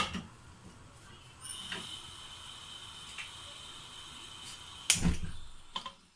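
Aluminium pressure cooker knocked against the cooktop as it is set in place, then a steady high-pitched whine starting about a second and a half in, and another metal clank about five seconds in.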